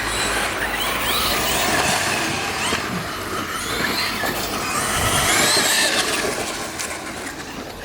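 Several electric RC cars running flat out in a race, their motors and gears whining in short glides that rise and fall with the throttle, over a steady rushing noise.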